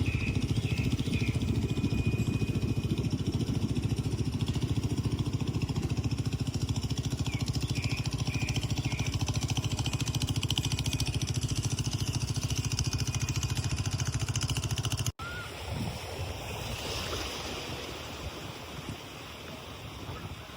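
A motor running steadily with a fast, even beat, cut off abruptly about fifteen seconds in. Quieter sea waves and wind on the microphone follow.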